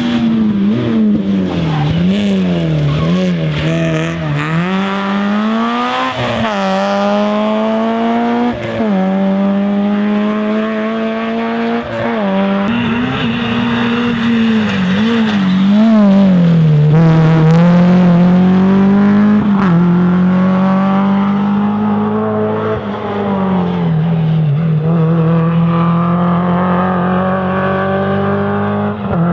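Rally car engine running hard, its pitch climbing in repeated sweeps and dropping back as it accelerates and shifts through the gears.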